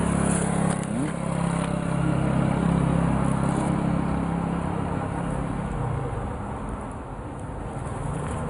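Motor vehicle engine running with a steady low hum, fading about six seconds in.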